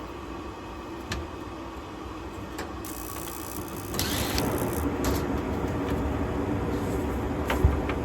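Gas furnace section of a rooftop gas-electric package unit running through its ignition sequence: a steady motor hum, then about four seconds in a rush as the burners light and the sound grows louder and stays so.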